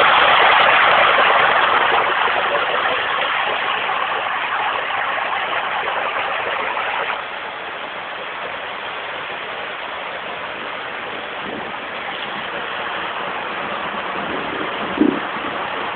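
Storm rainwater rushing down a flight of outdoor steps in a sheet, like a small waterfall, with rain falling. The rushing is loudest at first and drops to a lower steady level about seven seconds in.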